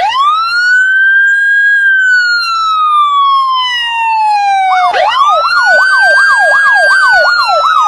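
Siren sound effect: a wail that rises quickly and then slowly falls. About five seconds in, a fast yelping siren starts over a second wail.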